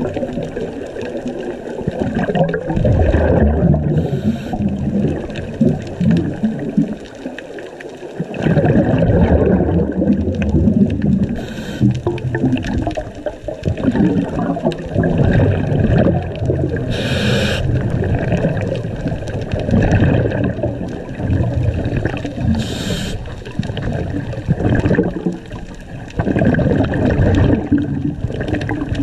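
Underwater scuba breathing: a short hiss from the regulator on each inhalation, about every five or six seconds, with exhaled bubbles noisily bubbling away in between.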